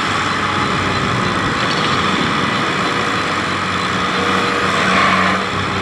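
Engines of a combine harvester and a tractor running steadily together, a dense mechanical din with a steady hum. The din swells briefly about five seconds in.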